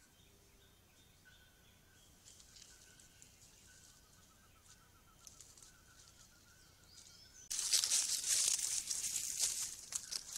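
Faint bird calls, short whistled notes repeated every second or so with a brief trill, then about 7.5 s in a sudden loud, dense crackling and rustling of dry leaf litter as a large bird, a dusky-legged guan, moves through it.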